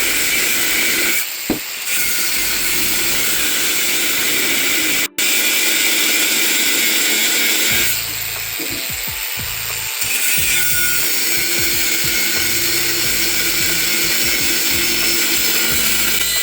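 Electric grinder grinding the surface of a cast-iron pot lid, running steadily with a couple of short dips in level.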